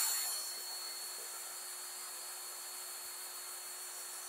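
Cordless drill running slowly and steadily, turning a gutted distributor shaft that drives the oil pump of a Ford 200 cu in six-cylinder engine to prime its oiling system. It eases off in the first second, then holds a steady, quieter hum.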